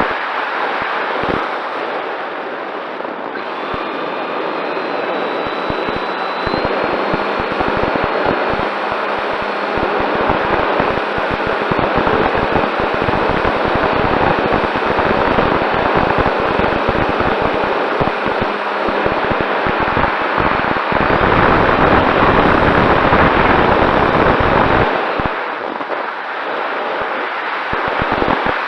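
Strong wind buffeting the microphone, a loud continuous rush with ragged gusts that swells about three quarters of the way through and then eases.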